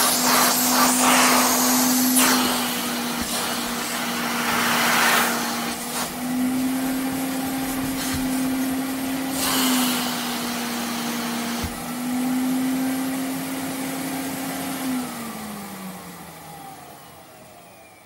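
Vacuum cleaner running with a steady motor hum and rushing air that swells louder now and then, then switched off about fifteen seconds in, its motor winding down with a falling pitch as the sound fades.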